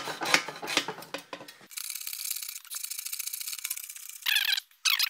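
Hacksaw strokes cutting through a carbon bicycle crank arm, rasping back and forth about twice a second. About one and a half seconds in, the sawing drops away to a faint hiss, and two short rasps come near the end.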